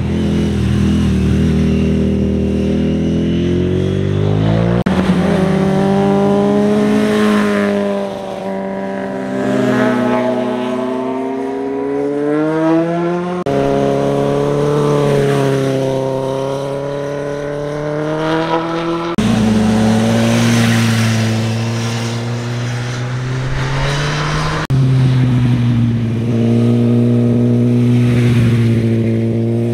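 Motorcycle engines, several bikes one after another, each revving up through the gears as it rides through a hairpin bend, the pitch climbing and dropping with each shift. The sound cuts abruptly from one bike to the next several times.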